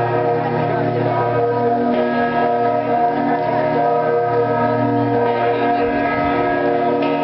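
Bells of St. Mark's Campanile ringing together: a loud, steady wash of many overlapping bell tones.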